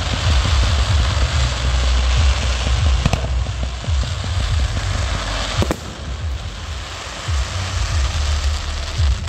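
A fireworks display: a dense, continuous crackle and hiss from volleys of rising comets, over repeated low thumps of launches and bursts. Sharper bangs come about three seconds in and again near six seconds.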